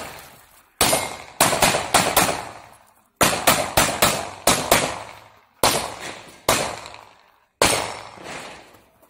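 Glock 17 9mm pistol fired in quick strings during a practical-shooting run, about fourteen shots in all, each trailing off in echo. There are two fast bursts of five or six shots, then three single shots about a second apart near the end.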